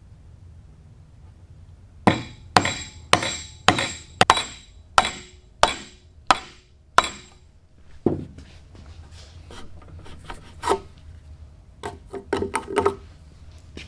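Hand-tool woodworking: about ten sharp, ringing strikes, roughly two a second, then softer rubbing and scraping with a few light knocks near the end.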